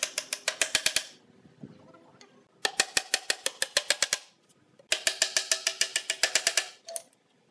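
Claw hammer tapping rapidly on a wooden tabletop, about ten light blows a second, in three runs with short pauses between them.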